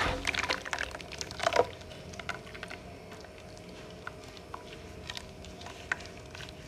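Hands sloshing and squishing through muddy clay water in a steel bowl, with a few wet splashes in the first couple of seconds. After that it goes quieter, with scattered small wet pops and drips.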